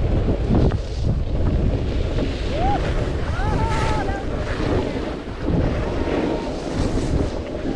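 Wind buffeting the microphone of a camera carried by a skier moving downhill, a steady loud rumble mixed with the hiss of skis on snow. A brief high voice-like call is heard about three seconds in.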